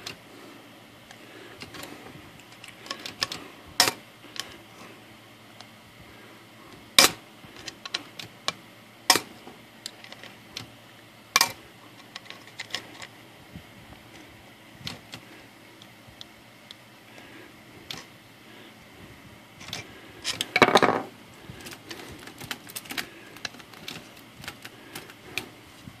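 Scattered sharp metal clicks and clacks as a screwdriver pries the space bar and its mounting brackets out of their pressure-fit slots on an Olivetti Valentine typewriter, with a longer, louder clatter about twenty seconds in.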